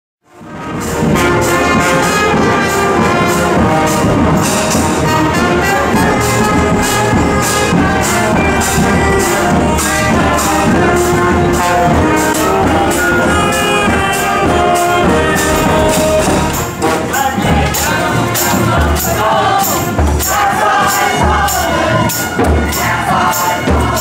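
Street band of brass horns and drums playing a tune, fading in at the start. From about two-thirds of the way in, crowd voices come in over a bass drum beating about once a second.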